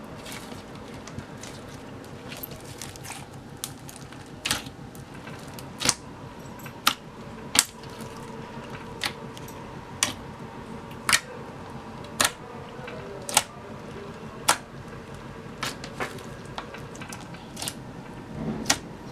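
Clear floam slime being pressed and worked by hand, giving sharp clicks about once a second over a faint steady hum.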